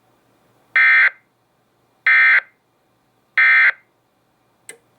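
Emergency Alert System end-of-message data bursts: three identical short, buzzing digital bursts about 1.3 seconds apart, the signal that closes a National Weather Service alert. A brief click follows near the end.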